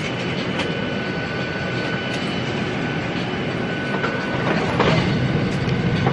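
Airliner cabin noise: a steady roar of engines and air with a thin steady whine over it, growing a little louder about four seconds in. A few faint clicks sound over it.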